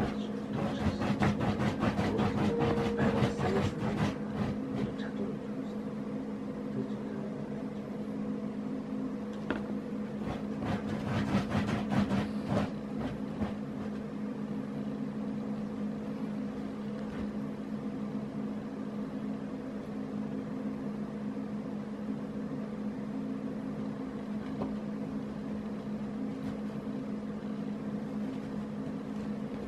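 A Shiba Inu digging and pawing at a fabric sofa cover, making rapid scratching and rustling in bursts during the first four seconds and again from about ten to thirteen seconds in. A steady low hum runs underneath.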